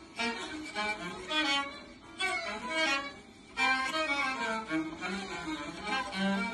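Electric upright bass played with a bow: a fast jazz bebop solo line of quick, running notes in short phrases with brief breaks between them.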